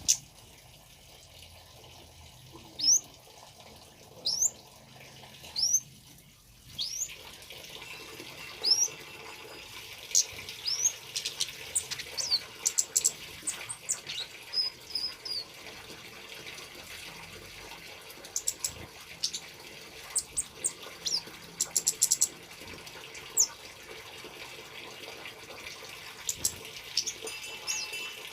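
Male kemade bird calling over trickling water. It gives sharp, rising whistled notes about every one and a half seconds at first. From about seven seconds in these turn into busier chirps and quick runs of notes.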